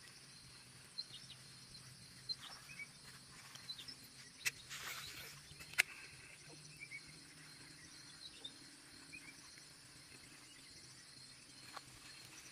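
Faint outdoor ambience with small birds chirping in short quick runs. A few sharp clicks and a brief rustle come about five seconds in, over a faint low steady hum.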